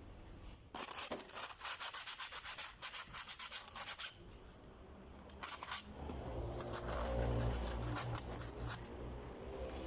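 Rapid back-and-forth rubbing strokes, several a second, as a concrete-mixer motor part is scrubbed or sanded clean; about six seconds in a louder low hum takes over.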